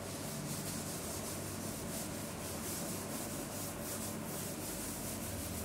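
A cloth wiping chalk off a chalkboard in many quick back-and-forth strokes.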